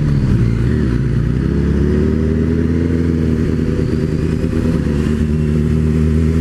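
MV Agusta Brutale motorcycle engine pulling away at low speed: the revs climb for about two seconds, then hold steady.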